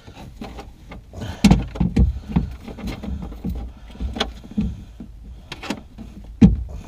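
Irregular knocks, taps and clatters of hand-fitted mounting bolts and hardware against the charger bracket and the boat's hull compartment; the loudest knock comes near the end.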